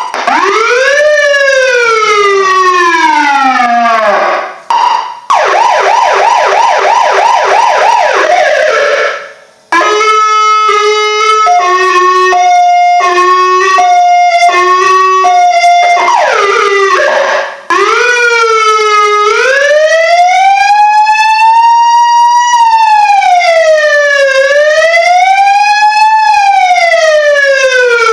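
The siren of a 1973 Plymouth Fury is tested through its tones. First comes a slow rising and falling wail, then a fast yelp of rapid repeated sweeps, then a hi-lo alternating between two pitches, then the slow wail again. There are brief breaks where it switches between tones.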